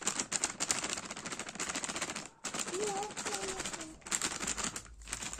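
Plastic packets of water balloons and a plastic bag crinkling and crackling rapidly as they are handled, stopping briefly a little over two seconds in.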